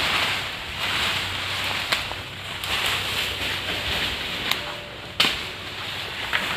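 A person biting and chewing ripe kusum fruits, with a few sharp cracks as the thin shells break, the loudest about five seconds in. Throughout there is a background hiss that swells and fades.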